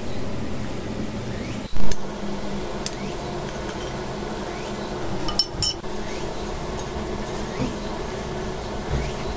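A metal fork clinking against a glass bowl a few times as a potato croquette is turned in egg white, with one dull knock about two seconds in. A steady low hum runs underneath.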